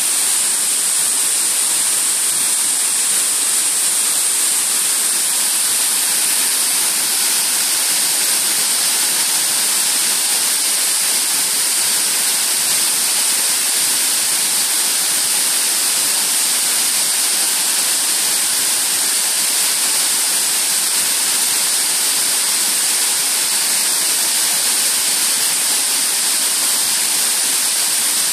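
Waterfall pouring into a rocky pool: a steady, unbroken rush of falling water with a bright hiss.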